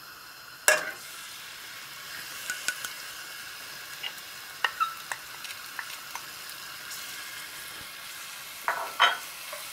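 Onion dropped into hot vegetable oil in a pot, landing with a sharp splash about a second in, then sizzling steadily. A wooden spoon stirs it and knocks lightly against the pot now and then.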